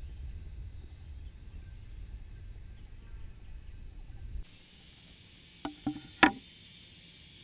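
A wooden cutting board set down on a bamboo-slat table: three quick knocks of wood on bamboo, the last the loudest. Before them, a steady high insect drone with a low rumble under it.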